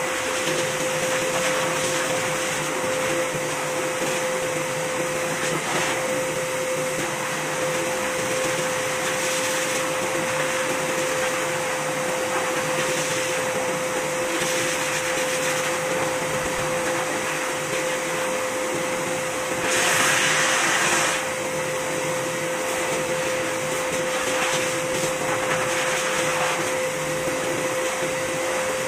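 Pet grooming blow dryer running through its corrugated hose, blowing out a long-haired cat's coat: a steady motor whine over rushing air, louder for about a second roughly two-thirds of the way through.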